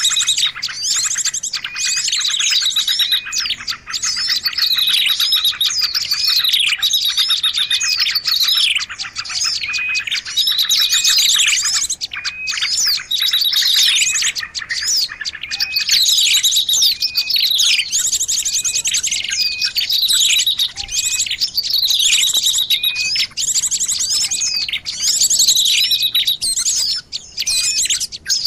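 Bird-lure (suara pikat) recording of several small songbirds calling over one another: a dense, continuous run of high chirps, rapid trills and repeated falling whistles.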